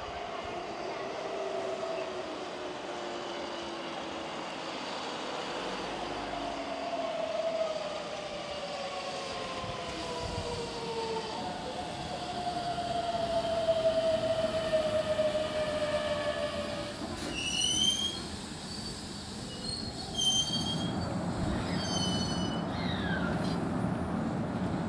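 Keihan 7000-series electric train braking into a station: the inverter-driven traction motors whine in several tones that fall steadily in pitch as it slows. Near the end come short high-pitched brake squeals and clicks as it comes to a halt.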